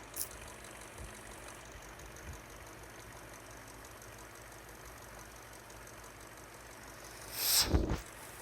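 Faint, steady low hum of a car engine idling. A small click comes just after the start, and a brief louder burst of noise about seven and a half seconds in.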